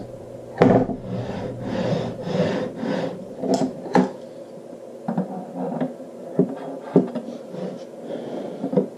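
Metal tools and aluminium extrusion parts being handled on a wooden workbench. There is a stretch of rubbing and scraping for the first few seconds, then a series of sharp clicks and taps.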